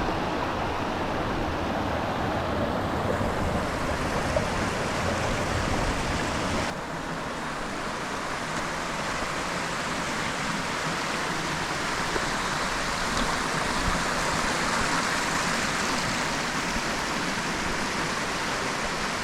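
Steady rushing of a waterfall and stream. About seven seconds in the sound changes abruptly and loses much of its low rumble.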